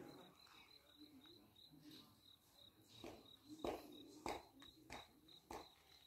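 Faint insect chirping: a high, thin tone repeating evenly about five times a second. Several short soft knocks come in the second half.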